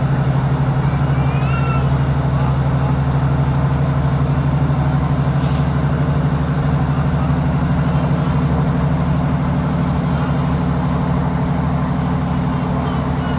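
Cabin of a Class 156 diesel multiple unit at speed: the underfloor diesel engine's steady drone mixed with wheel-on-rail running noise. A few faint high squeals come and go.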